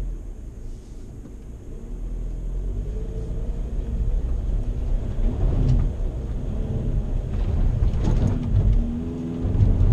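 VW Amarok's 2.0 BiTDI twin-turbo four-cylinder diesel pulling under load, its pitch rising and falling as the throttle changes, over a deep rumble, with a few knocks about halfway through and near the end.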